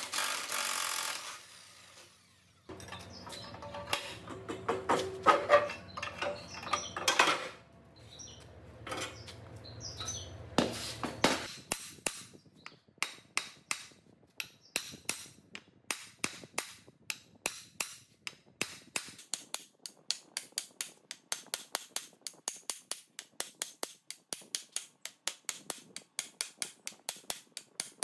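Workshop tool sounds: for several seconds a machine runs with a low hum and clattering knocks, then a long, even series of sharp taps, about three to four a second, like steady light hammering on metal.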